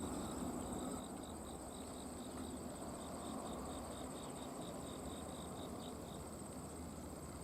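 Insects singing, crickets by their sound: a steady high trill together with a lower chirp repeated about five times a second, over a faint low background hum.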